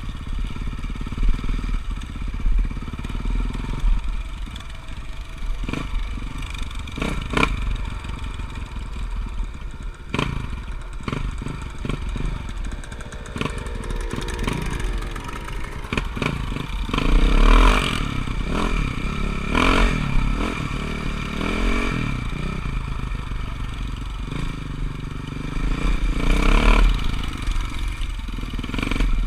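Motocross dirt bike engines running, with two louder revving surges, one a bit past the middle and one near the end, and scattered sharp knocks and clatter.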